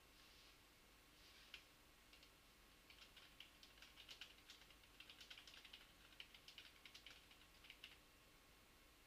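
Faint typing on a computer keyboard: a quick, uneven run of keystroke clicks that starts about a second and a half in and stops near the end.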